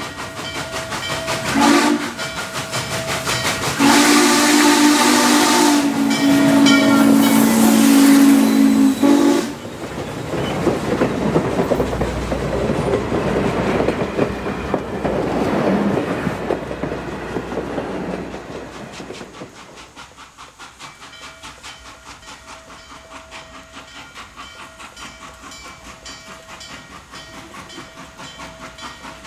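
Norfolk & Western class J 4-8-4 steam locomotive's chime whistle blowing a short blast and then a long one, followed by the locomotive running past with steam hiss and the passenger coaches rolling by, their wheels clicking over the rail joints as the sound fades.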